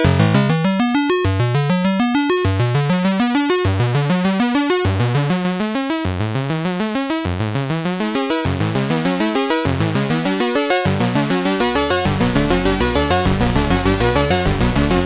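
Radikal Technologies Delta CEP A synthesizer module playing a fast run of notes that climbs in pitch and restarts about every second and a bit. About three-quarters of the way through, the tone turns denser and buzzier, as the waveform or filter setting is changed.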